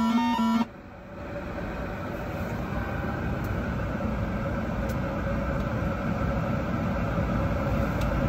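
Background music cuts off under a second in, giving way to the steady air and equipment hum of a powered-up Boeing 757/767 flight deck, with a faint steady tone in it, growing a little louder over the next couple of seconds.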